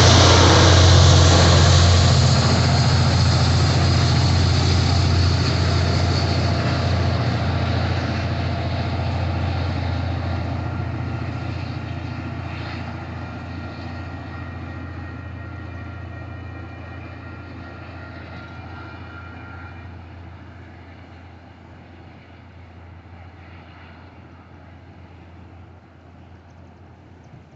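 MBTA commuter train, diesel locomotive and coaches, rumbling and humming as it moves away, fading steadily over about twenty-five seconds until only a faint hum is left.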